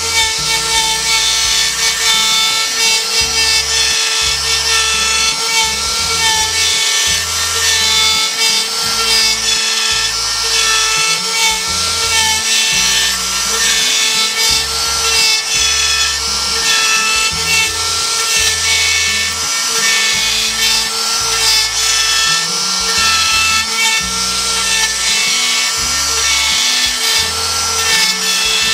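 A CNC router's spindle runs with a steady whine while its bit cuts a texture pattern into a pine board, the cutting adding a rough rasping noise. Background music with a changing bass line plays over it.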